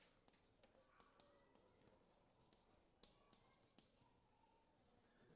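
Faint chalk scratching on a chalkboard as a word is written out in short strokes, with a sharper chalk tap about three seconds in.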